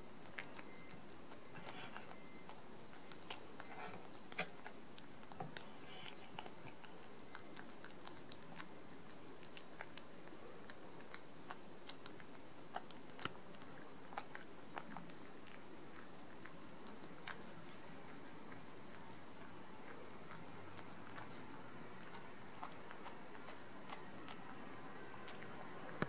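Long-haired cat eating soft shredded food from a ceramic bowl: irregular small clicks and smacks of chewing and licking, over a faint steady hiss.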